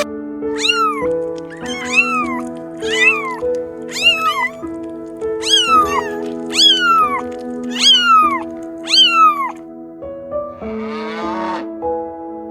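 A cat meowing repeatedly, about a dozen short high-pitched meows that each rise briefly then fall in pitch, over steady background music. A rougher, noisier animal call comes near the end.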